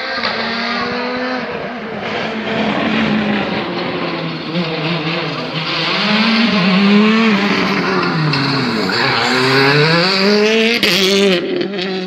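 Rally car engine at full throttle, the revs climbing and dropping several times through gear changes as the car approaches. The pitch dips sharply about nine seconds in, then climbs again.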